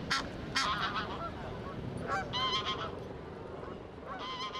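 Large waterbirds calling: several loud, harsh pitched calls in short series, about three bursts across the few seconds, over a steady low outdoor background.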